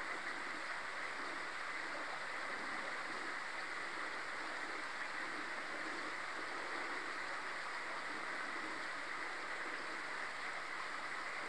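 Steady, even rushing noise with no distinct events, the kind of sound made by running water.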